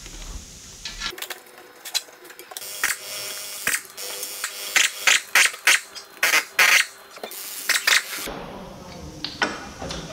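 Pneumatic wrench run in a series of short bursts, loosening the exhaust manifold bolts on an Iveco Cursor 13 diesel engine, with the bursts coming fastest about halfway through.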